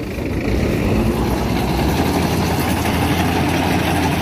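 A Green Field Crop King 120 crawler combine harvester running steadily, with its 120 HP engine and its header reel and cutter bar turning. The sound grows louder about half a second in and then holds.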